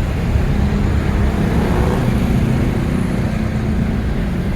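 Road traffic: a steady low rumble of motor vehicle engines and tyres, with a faint engine hum held through most of it.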